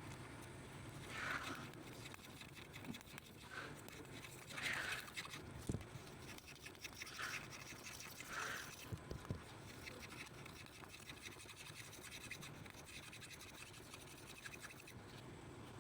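Faint scraping strokes, about five spaced a second or two apart, with a few small sharp taps in between: hand tools working on a CPU chip and its board.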